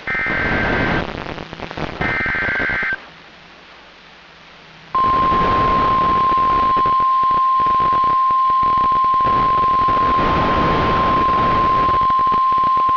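NOAA Weather Radio Emergency Alert System signal: two one-second bursts of SAME header data tones a second apart, then about two seconds of hiss, then the steady 1050 Hz warning alarm tone starting about five seconds in, over a hiss of radio static. It announces a newly issued warning, here a severe thunderstorm warning.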